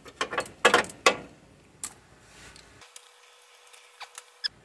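Ratchet wrench with an E12 Torx socket clicking and clinking on the alternator's top mounting bolts. A few sharp clicks come in the first two seconds, then fainter ticks near the end.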